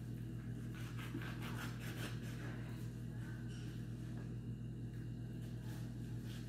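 Knife cutting through raw meat, with faint scattered scrapes and taps against the tray, over a steady low hum.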